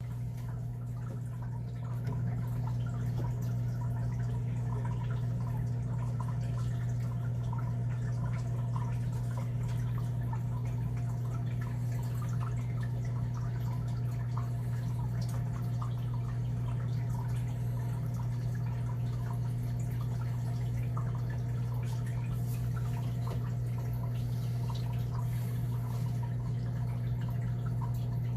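A steady low hum with several fixed tones, with faint scattered ticks and clicks over it.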